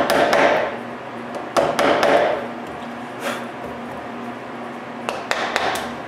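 Wooden mallet striking a wood chisel, cleaning out a cut joint in a timber-frame post. The two loudest knocks come at the start and about a second and a half in, each with a short noisy tail. Fainter knocks follow later.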